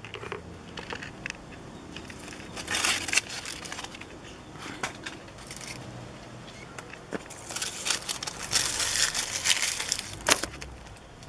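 Dry dead leaves and flower debris crackling and rustling as a hand grabs and crushes them off potted plants. The crackling comes in irregular bursts, busiest in the second half.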